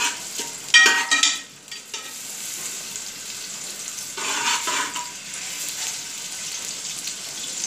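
Onion slices frying in hot oil in an aluminium pot with a steady sizzle. A steel ladle scrapes and clinks against the pot as it stirs, loudest about a second in and again around four seconds in.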